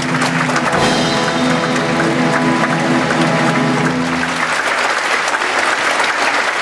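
Ballet orchestra playing the closing bars of a number, holding a final chord that ends about four and a half seconds in; audience applause carries on alone after the music stops.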